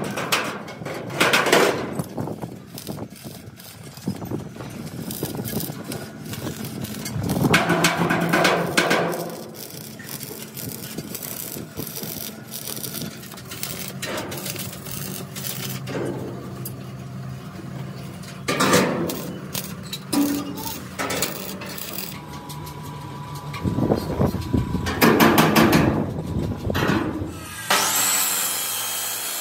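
Workshop fabrication noises: scattered knocks and clicks, with louder stretches of tool noise every few seconds and a scraping hiss starting near the end.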